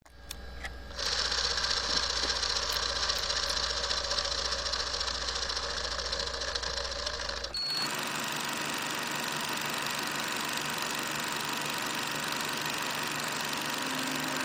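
Vintage film projector sound effect: a steady mechanical clatter over a low hum, starting after a few clicks. A short high beep comes a little past halfway, and the clatter goes on without the hum.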